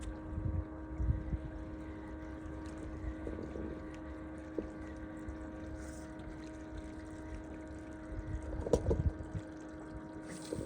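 A boat motor running steadily, a constant-pitched hum, with wind buffeting the microphone a few times.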